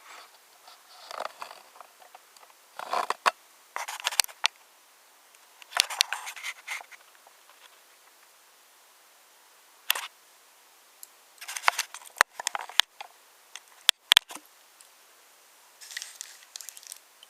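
Wooden toy trains and wooden railway pieces clattering and clicking in short bursts, with pauses, and a few sharp clicks about two thirds of the way through.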